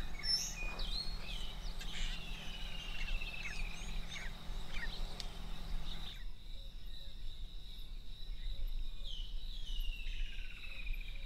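Wild birds calling and singing, including a quick run of notes falling in pitch, heard twice, over a steady high insect drone. A low hum underneath stops about six seconds in.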